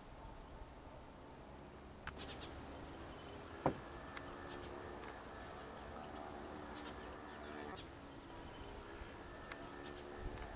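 Outdoor ambience of insects buzzing steadily, with a single brief sharp sound just under four seconds in.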